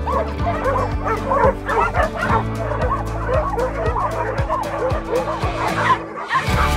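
A large pack of dogs barking, yipping and whining over one another in excitement, with background music underneath; the sound breaks off briefly near the end.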